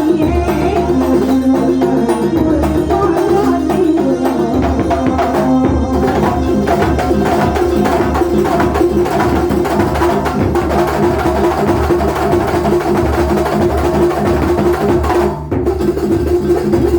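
Live Banyuwangi kuntulan ensemble playing: dense, fast drumming over a held melody line. The music dips briefly for a moment near the end, then resumes.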